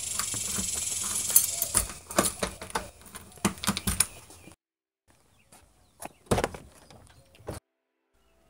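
Front door being unlocked and opened by hand: a run of clicks, rattles and knocks from the doorknob, latch and keys over a hiss of handling noise. It stops abruptly about halfway through, and a few more knocks follow before another sudden stop.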